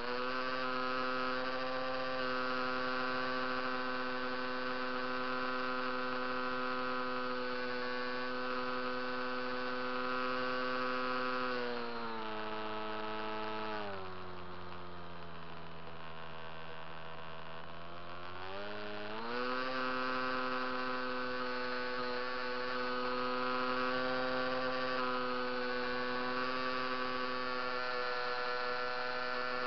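HobbyKing Coota RC seaplane's electric motor and propeller whining steadily, heard close up from on board. Its pitch sinks for about five seconds near the middle as the throttle is eased back, then climbs back up as power is added again.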